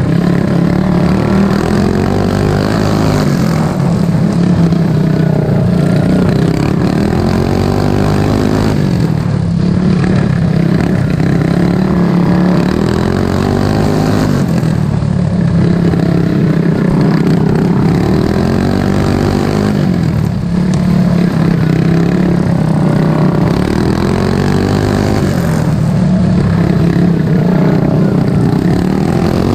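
Racing lawn mower engine running hard, its pitch falling and climbing again every few seconds as the mower slows and speeds back up around the track.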